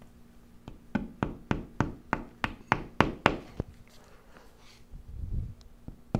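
A hammer tapping a wall anchor into a drilled hole, about ten sharp knocks at roughly three a second, followed a little later by a short low rumble.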